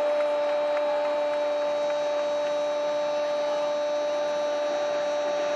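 A male football commentator's long drawn-out goal cry, "Goooool", held on one steady pitch.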